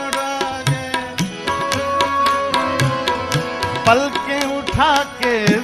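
Instrumental passage of a live ghazal: harmonium holding sustained notes over a steady tabla rhythm with deep bass strokes, and a wordless sung run sliding up and down near the end.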